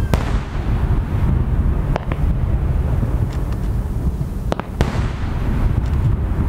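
Aerial firework shells bursting: a sharp crack right at the start, two more about two seconds in and two near the end, over a constant low rumble.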